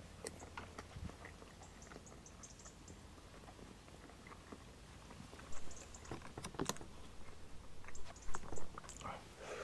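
Quiet eating sounds: a spoon clicking and scraping on the dish of bread and butter pudding, with chewing. There are scattered soft taps, with louder clicks about two thirds of the way in and again near the end.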